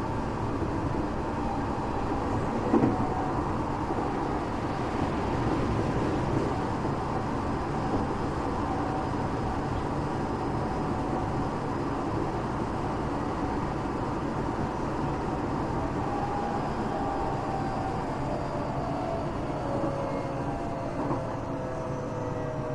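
Tokyo Metro 8000 series train running, heard inside the passenger car: a steady rumble of wheels on rail, with a single knock about three seconds in. Over the last few seconds, thin whining tones slide down in pitch.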